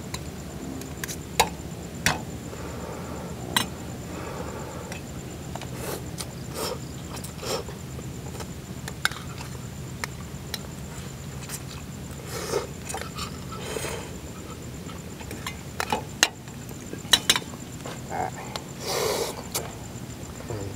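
Two people eating from metal plates and bowls: sharp clicks and clinks of utensils against the dishes, with a few short slurping and chewing noises over a steady low hum.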